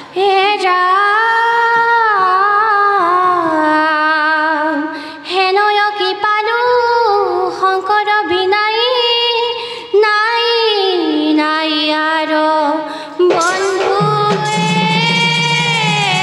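Girls singing dihanam, an Assamese devotional chant: a solo voice holding long, ornamented notes that bend and waver in pitch. Near the end a lower, steady part joins beneath it.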